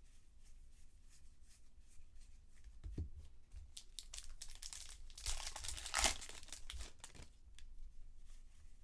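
Crinkling foil wrapper of a trading-card pack being handled and torn open, with a dense crinkly burst about five seconds in that lasts about a second, amid light rustles and ticks.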